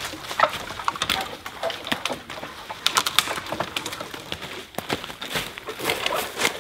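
Irregular crackling and snapping of dry twigs and leaf litter, a quick scatter of sharp cracks with no steady rhythm, as poles are handled and moved through forest brush.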